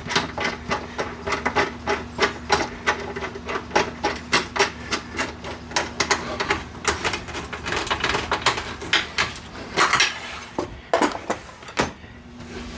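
Bolts being fitted and tightened to mount a miter saw back on its stand: a steady run of sharp metallic clicks and clinks, a few a second, with a few louder knocks.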